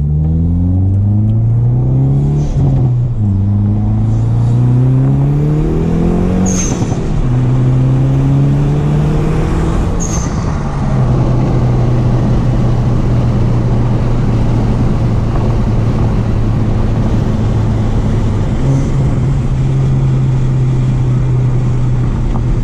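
Hyundai Veloster N's turbocharged 2.0-litre four-cylinder accelerating hard. Its pitch climbs, drops at an upshift and climbs again. The newly fitted HKS pull-type blow-off valve vents boost with a short, higher-pitched whoosh when the throttle lifts, about six and a half and ten seconds in. The engine then holds a steady note at cruise.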